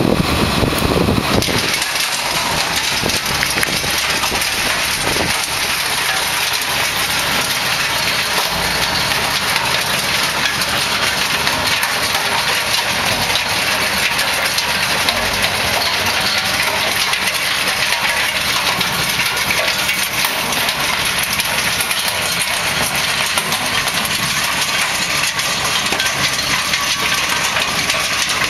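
Kongskilde Stonebear stone picker at work, a dense continuous clatter and rattle of stones being raked up and thrown against its metal hopper, over the tractor's engine running under load.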